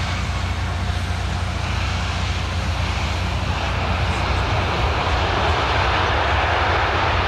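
Antonov An-178's twin Ivchenko-Progress turbofan engines roaring on the landing rollout, the roar building from about two seconds in as reverse thrust is applied.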